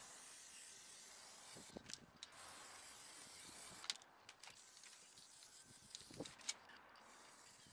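Aerosol spray paint can hissing as it sprays, stopping about four seconds in, with a few sharp clicks.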